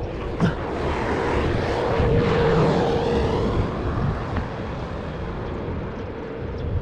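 Engine drone of something passing by, swelling about two seconds in and easing off, with a steady hum underneath.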